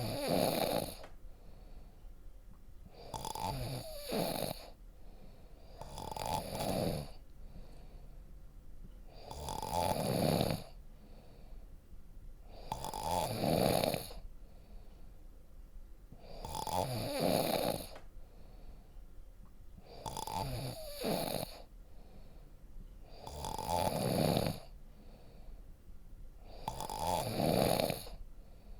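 A person snoring deeply, one long rasping snore about every three and a half seconds in a steady rhythm.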